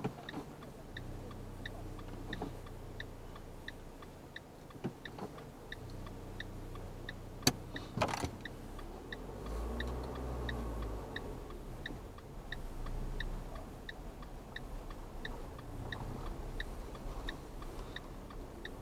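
A car's indicator ticking steadily, about three ticks every two seconds, over the low hum of the idling engine. A couple of sharp knocks come about halfway through.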